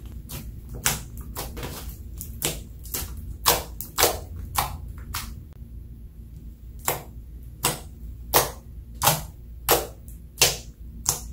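Glitter slime being pressed and poked with the fingers, giving a string of sharp, wet popping clicks as air pockets burst. The clicks come fast at first, pause briefly near the middle, then go on at about one every 0.7 seconds.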